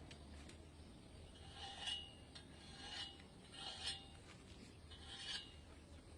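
Four short, faint rasping scrapes, spaced about a second apart.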